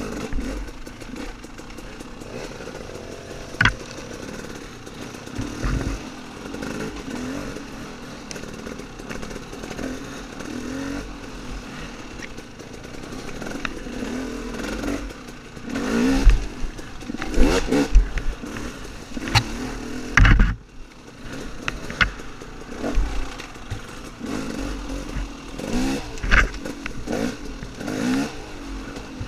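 Off-road dirt bike engine running under changing throttle, its pitch rising and falling, with sharp knocks, thumps and clatter from riding over rough ground. The knocks come thickest about two-thirds of the way through, and the engine drops back briefly just after.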